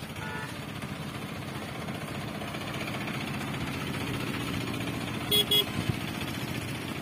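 Vehicle engine running steadily, with a horn giving two short toots about five seconds in.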